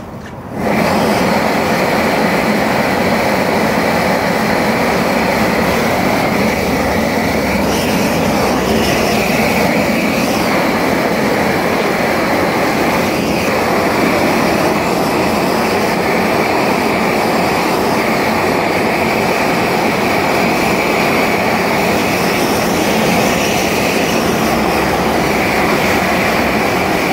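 High-intensity torch lighting about half a second in, then burning steadily with a loud, even rush of flame against the block.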